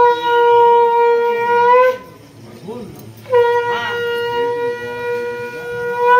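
Conch shell (shankha) blown in two long, steady notes, each lifting slightly in pitch just before it cuts off. The second note starts about a second after the first ends.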